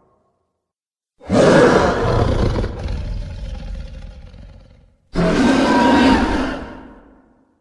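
Two kaiju-style monster roar sound effects, one after the other, each starting abruptly at full strength and fading out over a few seconds, with dead silence before the first.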